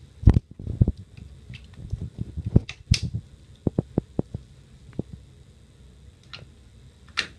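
A string of irregular sharp clicks and light knocks from hands handling plastic tubing and fitting the heater water-line connectors onto the ECMO oxygenator's water ports.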